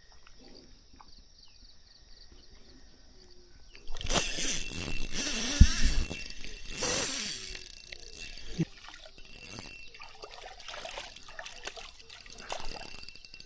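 Water splashing for about three seconds, starting about four seconds in, as a hooked small fish thrashes at the water's edge. After it come scattered quieter clicks and rustles of the rod and spinning reel being handled.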